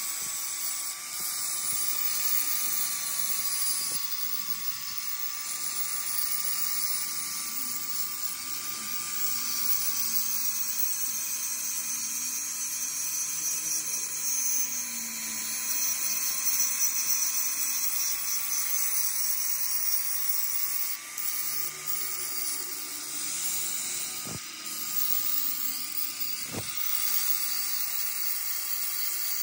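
Electric angle grinder running steadily with a high whine and hiss, its disc grinding down the weld bead on a broken crankshaft that has been welded back together. The pitch sags and recovers slightly as the disc is pressed in, and a few short knocks come near the end.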